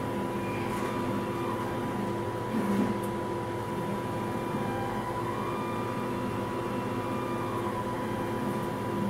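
Stepper motors of a homemade belt-driven CNC plasma table driving the gantry and torch head through a dry run of a cutting program, with no arc struck. A steady whine of several tones that sweeps briefly in pitch as the moves speed up and slow, a little louder about three seconds in.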